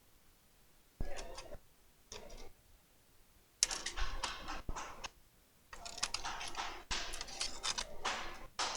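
Laptop keyboard keys being pressed in irregular bursts of quick clicks and taps, with short pauses between the groups, as the faulty keyboard is tested.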